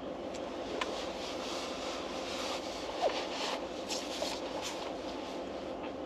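Steady hum inside a car, with a few brief rustles in the middle and one short squeak about three seconds in.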